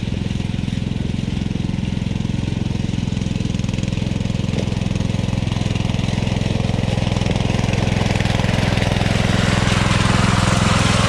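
Riding lawn tractor's engine running steadily as the tractor drives along, getting a little louder and brighter toward the end.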